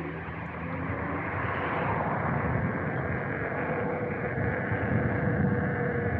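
Steady rush of road and wind noise while riding along a street with traffic, building over the first two seconds and then holding, with a faint steady hum through it.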